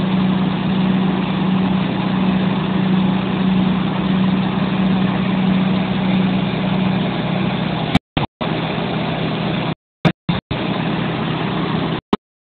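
Diesel engine of a Huddig 1260 articulated backhoe loader running steadily, with a constant low tone. After about eight seconds the sound drops out abruptly several times, with sharp clicks at each break, and it stops near the end.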